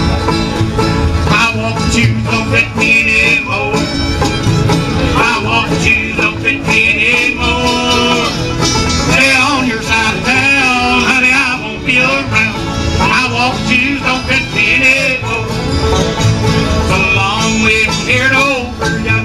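Live bluegrass band playing an instrumental passage on string instruments.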